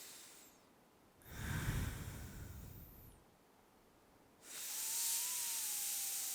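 Slow, deep breaths drawn in and let out through the nose during a yoga breathing cue: an airy breath trailing off at the start, a fuller breath a second in, and after a short pause another long breath from about four and a half seconds in carrying a faint thin whistle.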